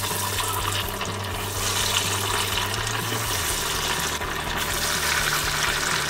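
A semolina-coated potato-and-poha donut deep-frying in hot oil in a kadhai: a steady sizzling hiss as the oil bubbles vigorously around it, just after it is dropped in.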